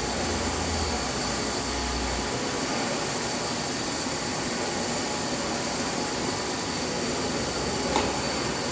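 Metal lathe running steadily while cutting a 3.5 mm pitch thread on a steel stud with a V-shaped threading tool. A low hum sits under it for the first two seconds, and there is a faint click about eight seconds in.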